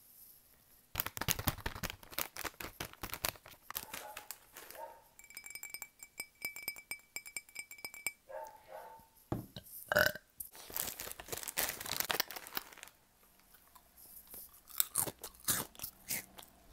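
Close-miked ASMR handling sounds: a crisp packet crinkling and crunching, then a steady ringing tone held for about three seconds, a sharp knock, and more crinkling and tapping near the end.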